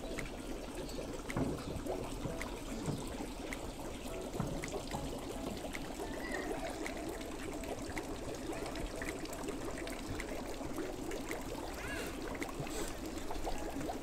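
Water trickling and pouring steadily.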